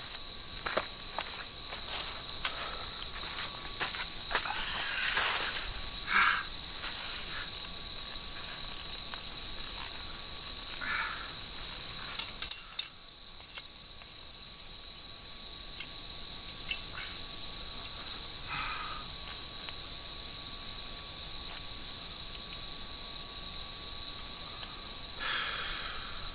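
Autumn night insects, crickets, trilling in one steady high-pitched tone that breaks off for a moment about halfway, with a wood campfire crackling in scattered pops.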